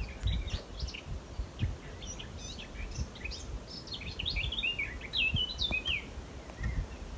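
Small songbirds singing and chirping, the calls coming thickest a little past the middle, over a low, uneven rumble.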